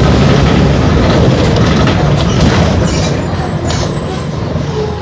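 Mercedes-Benz OF-1418 bus's six-cylinder turbodiesel engine running under load, then easing off and getting quieter a little past halfway.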